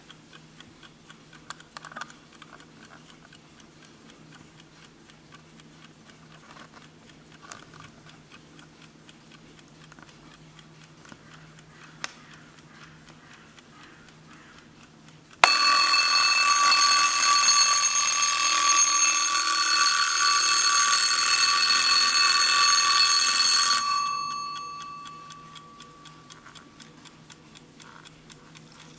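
Wehrle Kiddy wind-up alarm clock ticking softly with a few handling clicks, then its alarm bell goes off suddenly about halfway through and rings loudly and steadily for about eight seconds. It cuts off, the bell tone dies away over a couple of seconds, and the ticking goes on.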